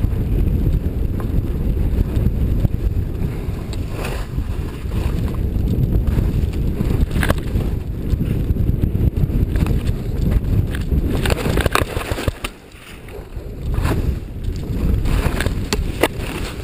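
Wind rushing over the microphone of a camera carried by a skier going downhill, a steady low rumble that drops away briefly about twelve seconds in. A few short knocks or scrapes come through it.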